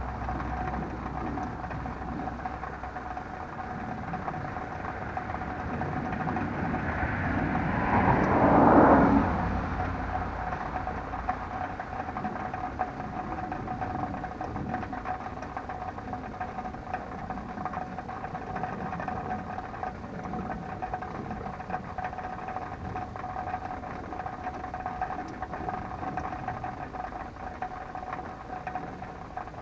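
A motor vehicle passing by, its noise building to a peak about eight to nine seconds in and then fading away, over a steady faint whine.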